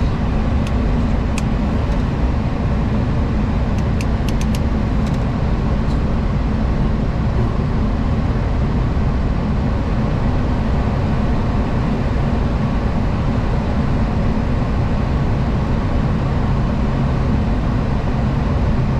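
Steady, even rumble and hiss of a Boeing 737-800 flight deck. A few faint clicks come in the first six seconds or so.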